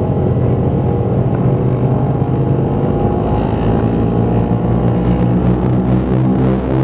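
Twin radial piston engines of a Douglas DC-3 running at high power, heard from inside the cockpit as the aircraft starts its takeoff run: a loud, steady drone.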